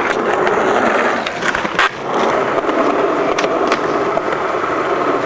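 Skateboard wheels rolling over concrete with a steady rumble, broken by several sharp clacks of the board striking the ground and a ledge, the loudest a little under two seconds in and two more about three and a half seconds in.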